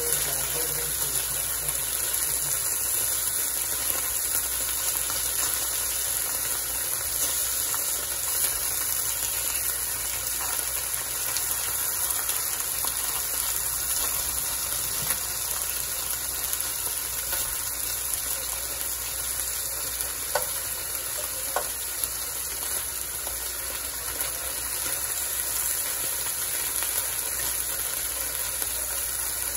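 Lamb steaks sizzling in hot oil in a frying pan, a steady crackling hiss, with a few light clicks as the pieces are turned over.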